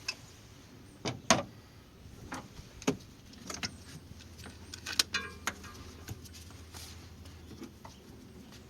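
Scattered sharp clicks and clinks of hand tools and parts being handled while the throttle-body connectors and fittings go back together, with a short rattle about five seconds in.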